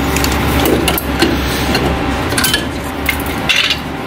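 Rear drum brake shoes and their hardware being worked off a Datsun 240Z backing plate: several sharp metal clicks and knocks, over a steady low hum.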